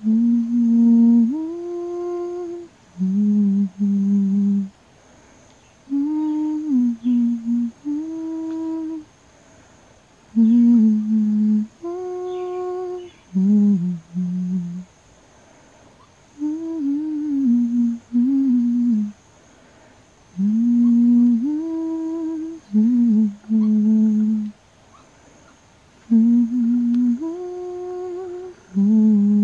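A person humming a slow, repetitive lullaby-like tune: short phrases of a few held notes that repeat every few seconds with brief pauses between them, to lull a baby woolly monkey to sleep.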